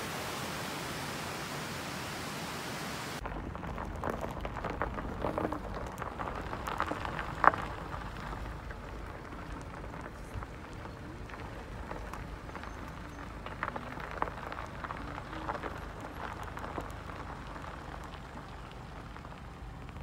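Rushing water: a mountain stream running over rocks as a steady hiss, which about three seconds in gives way to the duller rush of water flowing fast along a concrete irrigation canal. Scattered crackles run through the canal sound, with one sharp click about seven and a half seconds in.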